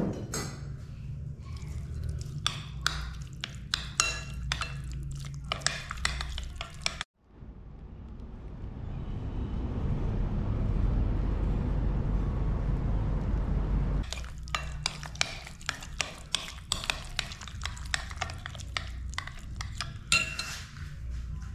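A metal spoon stirring and scraping in a glass bowl of thick yogurt and grated cucumber, with quick irregular clinks of metal on glass. In the middle this stops abruptly and gives way to a steady rushing noise with a low rumble, swelling in over a few seconds, before the spoon clinking resumes.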